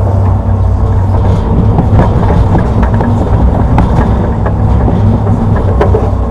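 Hitachi Zaxis 210-5G hydraulic excavator's diesel engine running steadily under working load, with occasional sharp knocks from the machine as it digs.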